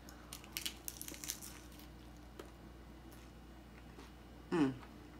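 Crisp crunching of a hard corn taco shell being bitten, a rapid run of cracks over the first second and a half, then quiet chewing. Near the end, a short hum from the eater, falling in pitch.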